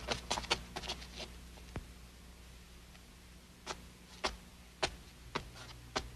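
A run of quick clicks in the first second, then light single taps, about two a second, in the second half.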